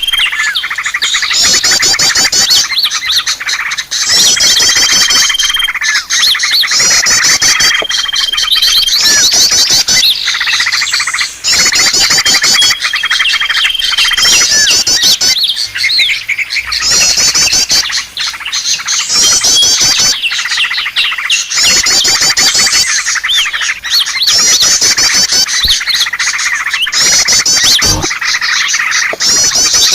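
A loud, dense chorus of small songbirds chirping and trilling rapidly, a bird-lure (pikat) recording of many small birds calling together. A short, steady whistled note recurs every few seconds in the first half.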